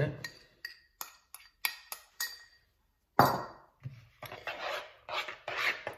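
Metal spoon clinking against a ceramic bowl as dry ingredients are knocked out of it into a mixing bowl, a run of light clinks. A single louder knock follows about three seconds in, then a spoon scrapes around a plastic mixing bowl in a steady rhythm of strokes, stirring the flour into the batter.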